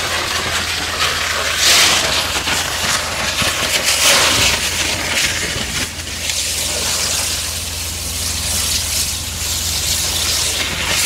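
High-pressure water jet of an Aquajet Aquacutter 710V hydrodemolition robot blasting concrete from a quay wall: a loud rushing hiss of spray gushing and splashing into the sea, swelling now and then. A steady low hum runs underneath.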